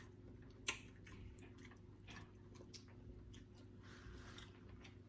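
Faint chewing and mouth sounds of a person eating stewed pork neck bones, with scattered small clicks and one sharp click less than a second in.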